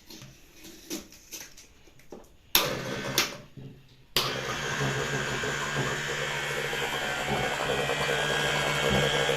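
Cordless car-wash gun's electric pump motor switched on, running with a steady hum, after two sharp clicks; the replacement motor works.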